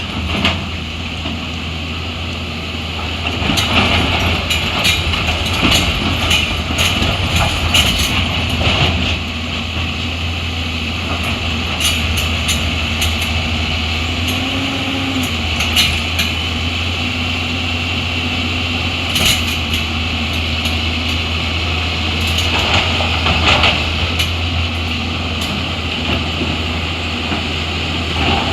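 Heavy diesel engine of a construction machine running steadily, with scattered short knocks and clanks.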